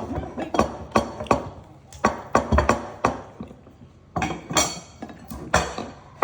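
Repeated sharp knocks with a light ring, irregular and roughly two a second with a short pause about three seconds in: kitchen utensils striking a hard surface during food preparation.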